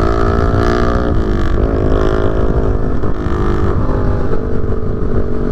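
Small motorcycle engine running at cruising speed, its pitch rising slightly, dipping and recovering about a second and a half in, then holding steady, with heavy wind rumble on the microphone.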